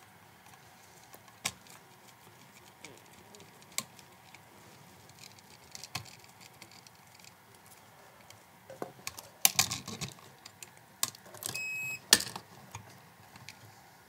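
Light clicks and taps of a screwdriver against a duplex receptacle's metal terminal screws and wires as they are worked loose, spaced a few seconds apart with a quick cluster near the middle. A brief high-pitched tone sounds about three-quarters of the way through.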